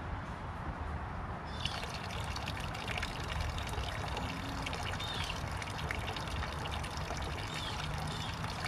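Water trickling steadily from a gravity-fed rain-barrel overflow into a muddy rock-lined basin; the flow grows brighter about a second and a half in. A few faint bird chirps sound over it.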